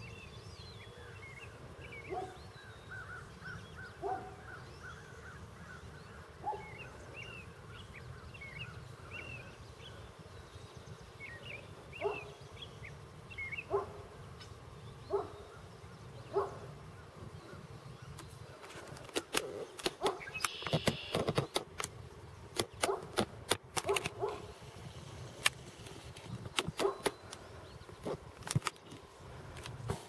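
Wild birds calling outdoors: short high chirps and a quick trill, with a lower call repeating every couple of seconds, over a low steady rumble. In the second half a rapid, irregular run of sharp clicks and knocks becomes the loudest sound.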